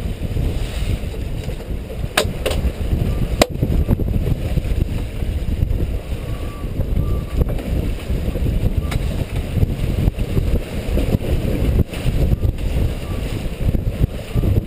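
Strong wind buffeting the microphone aboard a sailboat, a steady low rumble, with a few sharp knocks between about two and three and a half seconds in.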